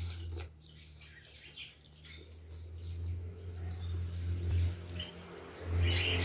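Birds chirping on and off, louder near the end, over a steady low hum.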